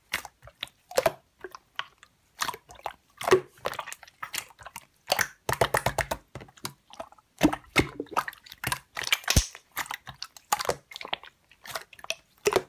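Slime being squeezed and worked by hand, making irregular short clicks and crackles.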